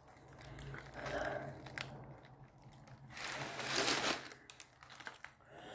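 Paper Subway sandwich wrapper rustling and crinkling as it is handled. The rustling comes in uneven bursts and is loudest about three seconds in.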